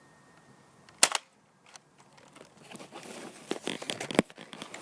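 A Nerf blaster fires a single dart with a sharp snap about a second in, followed later by light clicks and rustling of handling.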